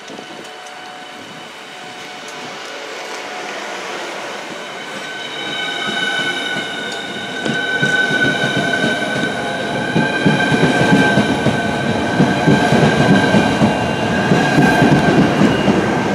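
Southeastern Class 395 Javelin high-speed electric train running through the station: a steady high whine made of several tones over the rumble and clatter of wheels on the rails, growing louder throughout.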